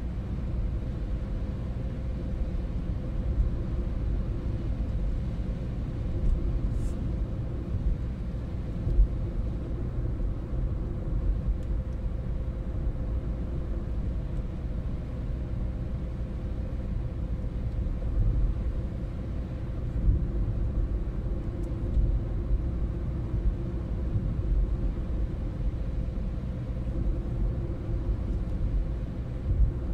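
Car driving on an open road, heard from inside the cabin: a steady low rumble of engine and tyres, with a few small thumps from bumps in the road.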